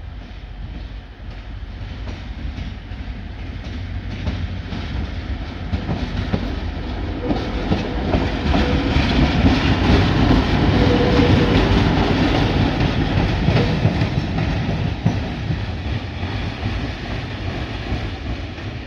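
Taiwan Railways diesel shunting locomotive running on its own past at close range: engine rumble and wheels clacking over the track, growing louder to a peak about halfway through, then fading as it moves away.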